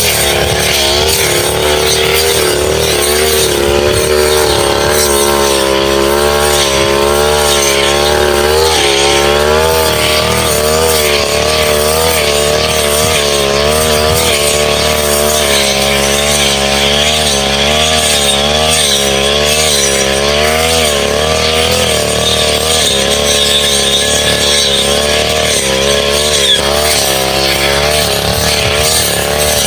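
Petrol brush cutter engine running at high revs, its pitch wavering up and down continuously as the blade cuts through saplings and brush.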